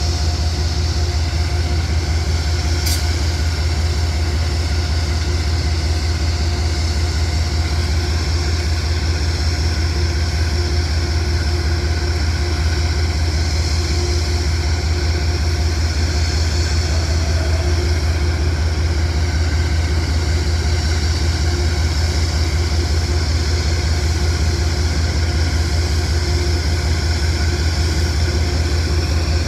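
Amtrak GE Genesis diesel-electric locomotive idling while standing still: a steady, unchanging low drone with a constant hum. There is one brief high click about three seconds in.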